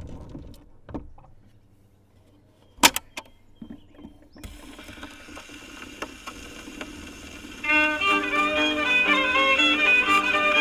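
Gramophone tone arm handled with a few clicks and one sharp knock, then the needle drops onto a spinning 78 rpm record about four seconds in and the hiss of surface noise starts. About seven and a half seconds in, a French-Canadian fiddle tune begins playing from the record over that hiss.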